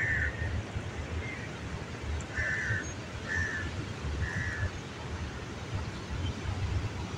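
A crow cawing about five times in the first half, over the low rumble of wind on the microphone and the flow of a swollen, fast-running river in flood.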